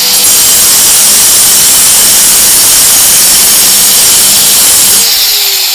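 Power cutter with a diamond blade cutting into a concrete driveway, a loud, steady grinding hiss over the motor's hum. About five seconds in the blade comes out of the cut and the motor winds down with a falling whine.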